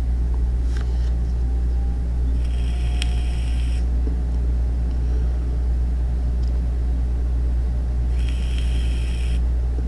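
Steady low background hum, with two short bursts of higher-pitched hiss about two and a half and eight seconds in and a single click about three seconds in.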